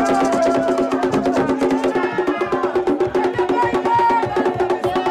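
Vodou ceremony drumming: a fast, even beat of hand drums with a sharp clacking percussion part, and voices singing over it.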